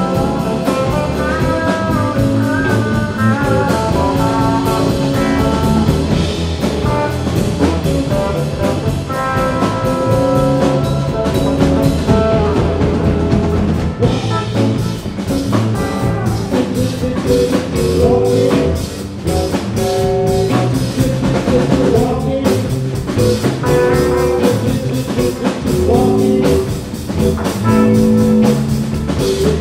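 Live band music: two electric guitars, electric bass and drum kit playing a blues-rock number, with sustained, bending guitar lines over a steady beat.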